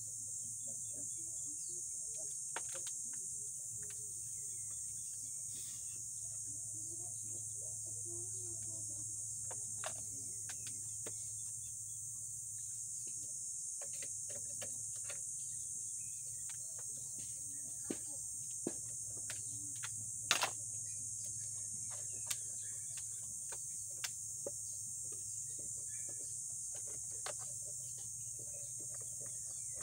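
Steady, high-pitched chorus of insects, with scattered light clicks and knocks from handling the scooter while it is wiped down, the sharpest knock about twenty seconds in.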